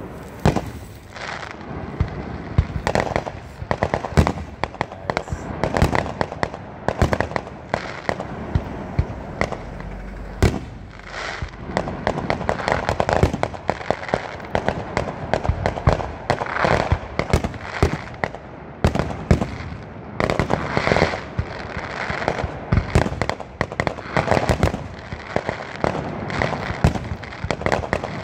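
Fireworks going off in a continuous barrage: rapid, overlapping bangs and crackling with no break.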